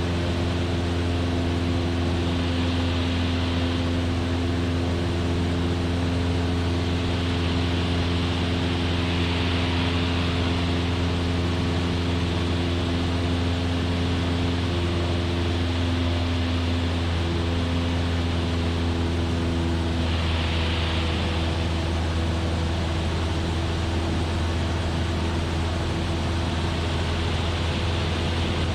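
Cabin noise of a Cessna 172F in cruise: the six-cylinder Continental O-300 engine and propeller running with a steady drone and a constant note, with airflow hiss.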